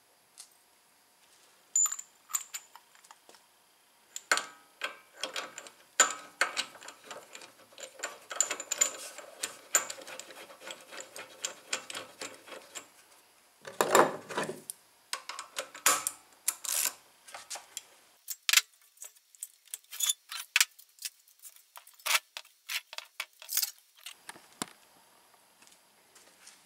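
Metal hand tools and small-engine parts clicking and clinking during reassembly, with a socket wrench working bolts: many light metallic taps and clicks, one louder knock about halfway through, then sparser sharp clicks.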